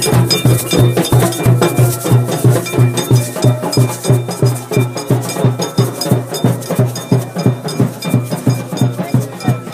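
Carnival percussion music: a steady, fast drum beat of about three strokes a second, with ringing metallic strikes of a bell or iron over it.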